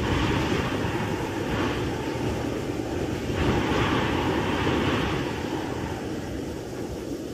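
Wind sound effect from an animated scene's soundtrack: a steady rushing howl with a low rumble beneath it. It swells briefly about a second and a half in, and again for a longer stretch midway.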